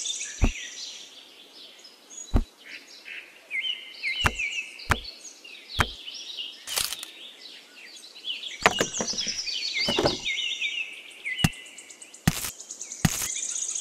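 Sharp clicks and knocks from small miniature model pieces being handled and set down, about a dozen at irregular intervals, over birds chirping.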